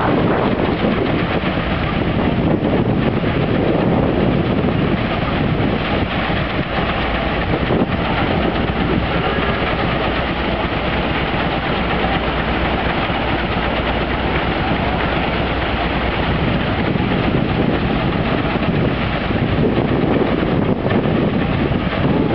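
Steam-engine-driven threshing machine running at work, a steady mechanical rumble and rattle as wheat is fed through it.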